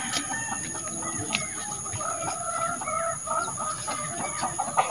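Chickens clucking over and over, a little louder near the end, with a steady high-pitched drone in the background.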